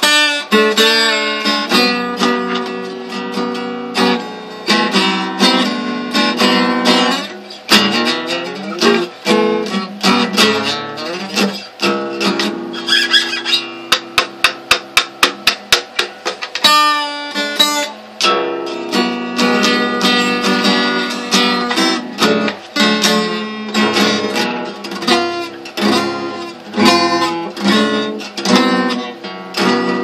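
Acoustic guitar played solo, strummed and picked, with notes sliding down in pitch about a third of the way in. About halfway through there is a quick run of sharp, evenly spaced hits, about five a second, and then the strumming starts again.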